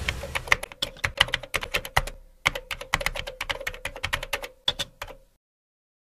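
Typing sound effect: rapid, irregular key clicks that stop a little after five seconds in.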